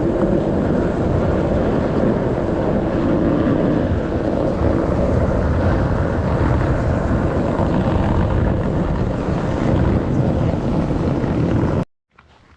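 Toyota Tundra pickup pushing through deep snow: a loud, steady rush of engine and tyres churning snow, with snow dragging under the truck. It cuts off abruptly near the end.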